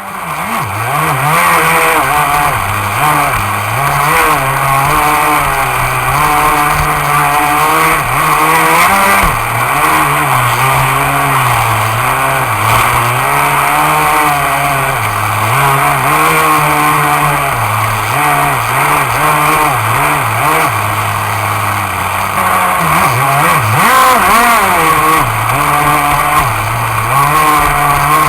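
Cen Gray Thunder RC boat engine running loud and continuously, its pitch rising and falling with the throttle.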